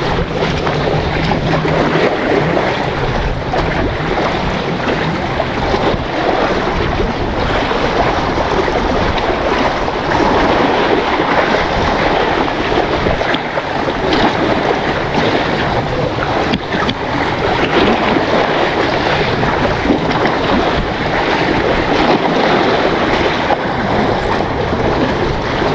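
Steady wash of sea waves against breakwater rocks, with wind buffeting the microphone.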